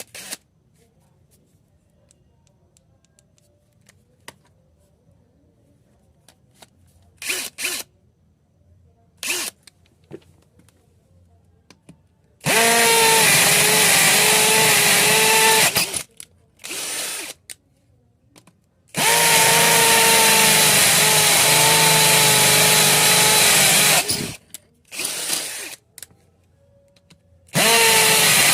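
DeWalt DCD7781 cordless drill running in bursts: a few quick trigger taps, then three long runs of several seconds each and two short ones between them. Each run spins up quickly and holds a steady, loud whine.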